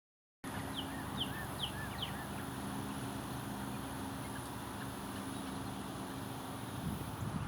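A bird gives a quick run of four or five short calls in the first couple of seconds, over a steady low hum like a distant engine and a thin, steady high-pitched whine.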